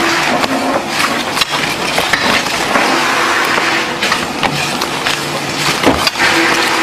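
Playing cards handled fast on a table: many quick clicks and rustles of card decks being counted, squared and tapped down, over a steady noisy din.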